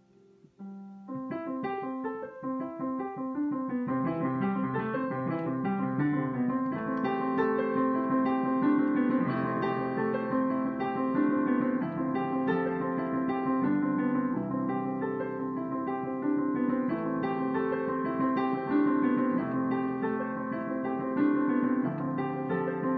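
Solo upright piano. A held chord dies away, then about a second in a quick, steady stream of notes starts and runs on without a break.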